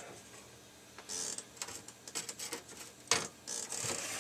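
Amstrad CPC 464 circuit board being fitted into its plastic case base: light scraping and small plastic clicks and taps, with one sharper knock about three seconds in.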